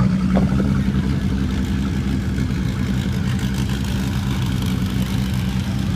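Car engine idling, a steady low drone that holds an even pitch with no revving.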